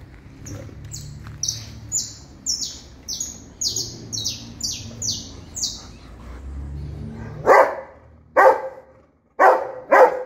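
A small bird chirps about ten times in quick succession, short high notes roughly two a second. Then, from about seven and a half seconds in, a Rottweiler gives four loud, deep barks, the last two close together.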